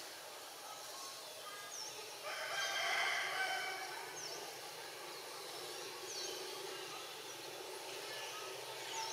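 A rooster crows once, starting about two seconds in and lasting under two seconds. Short high chirps from a small bird repeat every second or two over steady outdoor background noise.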